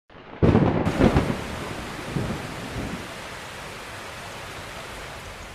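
Thunder rumbling over steady rain, loudest in the first second, with weaker rolls about two and three seconds in, then settling into an even rain hiss.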